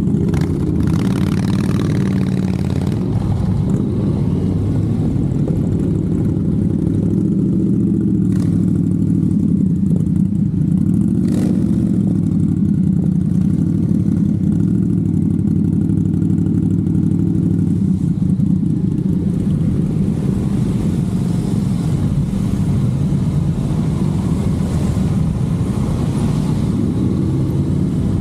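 Honda NC750X's parallel-twin engine running at low road speed, heard on board, a steady note that rises and dips a little in pitch, with other motorcycles riding close by in the group.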